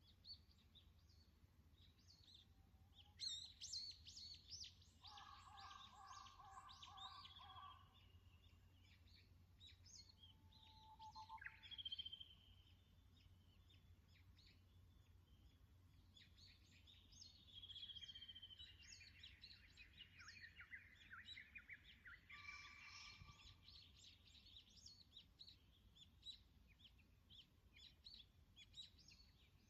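Several wild birds singing and calling at once, many short high chirps and whistled notes overlapping, busiest a few seconds in and again past the middle.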